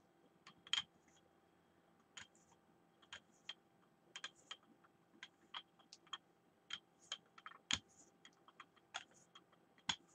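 Faint, irregular light clicks and taps, a couple of dozen spread unevenly, with a slightly louder click near the middle and another near the end.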